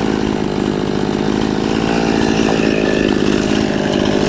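Chainsaw running steadily, cutting a section off a pine trunk.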